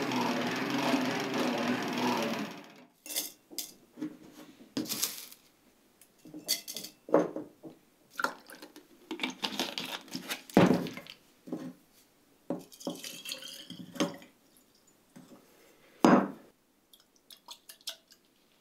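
A buffing wheel running with a knife blade pressed against it, cutting off about two and a half seconds in. Then glassware being handled on a wooden table: clinks, liquid poured into a glass jar, and a few sharp knocks as the jar and cylinder are set down.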